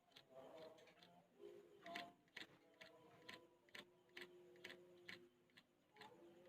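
Yellow-vented bulbul nestlings giving faint, short, sharp begging calls about twice a second, asking to be fed.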